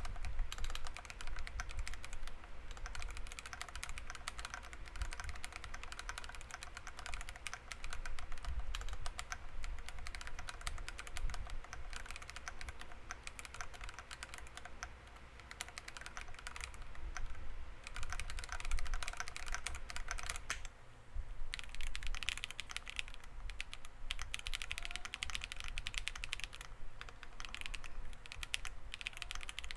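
Continuous fast typing on a mechanical keyboard in a CNC aluminium case, with factory-lubed Akko Cream Black Pro linear switches, PBT keycaps and a polycarbonate plate on a leaf-spring mount. The keystrokes come densely and overlap, with a brief pause about two-thirds of the way through.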